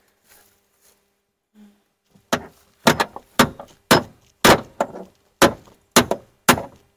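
Hammer blows driving a steel hinge pin into a pickup truck's door hinge, sharp metallic knocks about two a second, starting a little over two seconds in, each with a short ring. The hinge's bushings are worn out.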